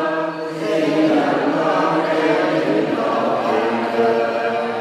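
A choir singing a hymn, with long held notes that shift in pitch every second or so.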